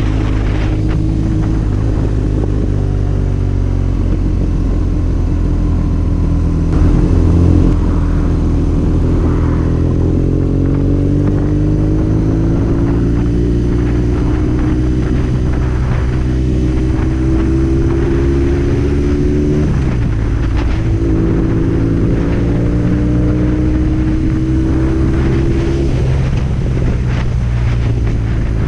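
BMW R nineT's boxer twin with an Akrapovic full exhaust, heard from the rider's seat while cruising. The engine note rises and falls gently with the throttle, drops sharply about twenty seconds in and climbs again, with a brief louder burst about seven seconds in.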